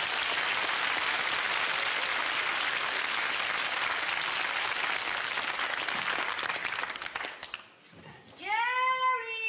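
Studio audience applauding, dying away about eight seconds in. Near the end comes one long, high-pitched cry that rises and then holds its pitch.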